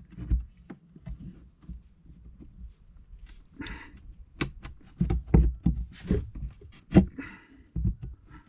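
Irregular knocks, clicks and short scrapes of hands working at a plastic outlet panel on an RV wall, trying to pry it loose.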